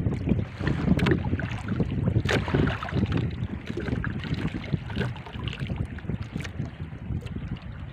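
Wind buffeting the microphone on a small boat at sea, an uneven low rumble, with a few sharp clicks and knocks scattered through it, the loudest about two seconds in.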